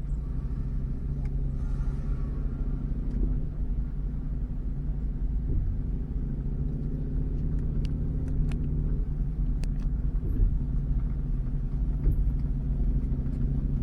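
Road vehicle's engine running steadily at an even, low speed, with constant road rumble and a few faint clicks.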